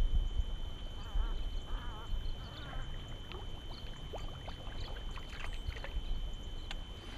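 Ducks quacking: three short wavering calls about a second in and over the next two seconds, followed by a scatter of light ticks over a low rumble.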